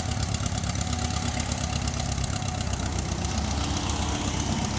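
Engine of an English-built Allis-Chalmers B tractor from around 1951, idling steadily just after being started, still warming up.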